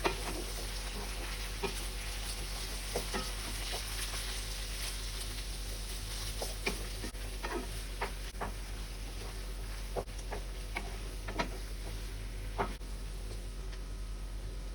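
Lauki (bottle gourd) sabji sizzling in a pan while it is stirred, a steady hiss broken by scattered clicks of the spoon against the pan.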